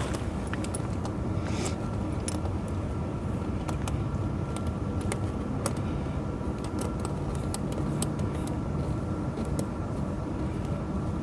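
An engine running steadily, with light metallic clinks of tractor tire chain links now and then as the chain is handled.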